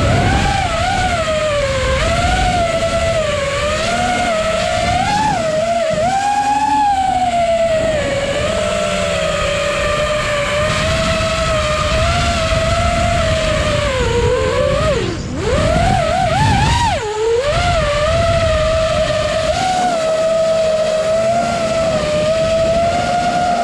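FPV quadcopter's brushless motors and propellers whining, the pitch wandering up and down with the throttle. About 15 seconds in, and again near 17 seconds, the whine drops sharply and climbs back as the throttle is chopped and punched. Wind rumbles on the onboard microphone underneath.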